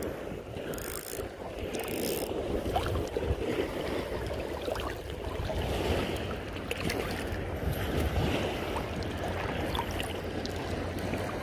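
Wind rushing on the microphone over a steady wash of seawater at the shoreline.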